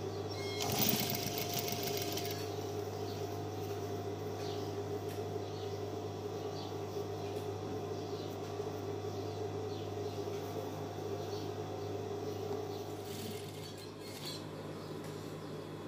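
Industrial sewing machine running steadily as it stitches a cuff onto a sleeve of heavy dress fabric, with a brief burst of noise about a second in. Near the end the stitching stops and a fainter hum remains.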